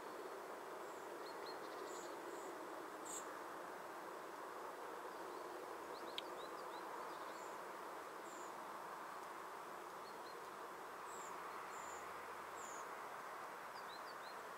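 Faint steady background noise with scattered short high chirps of small birds, and a single sharp click about six seconds in.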